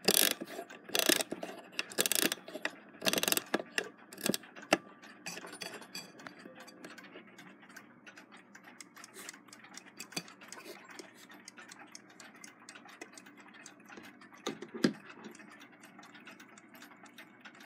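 Wind-up Big Ben-style alarm clock, pieced together from parts, being wound by its key with a stiff mainspring: a few loud clicks about a second apart. Then the movement runs with a faint, steady tick, and a single knock comes a few seconds before the end.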